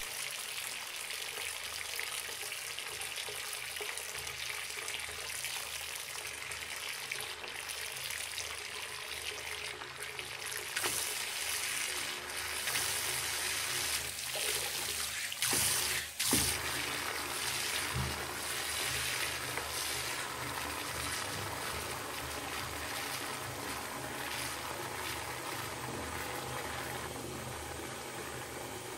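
Bathtub filling from a running tap: a steady rush of water pouring into the tub, briefly louder about halfway through.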